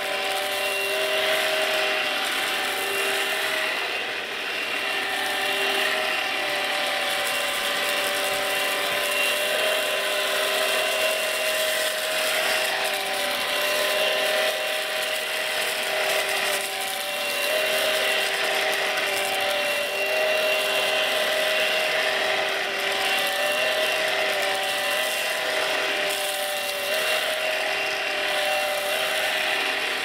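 BlitzWolf BW-AR182 cordless stick vacuum running on carpet with its floor brush, a steady motor whine of several tones over a rushing of air. The pitch wavers slightly now and then as the head is pushed back and forth.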